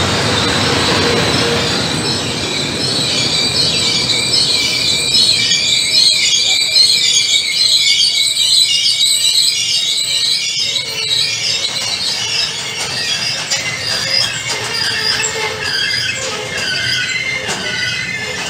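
Freight train of tank wagons rolling past close by, with the wheels on the rails making a high, wavering squeal over a rumble that is heaviest in the first couple of seconds.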